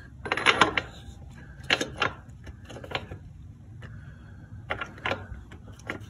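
Irregular metallic clicks and clinks of a hand wrench working the rear axle nut of a Kawasaki W800 motorcycle as the nut is snugged by hand, before final torquing.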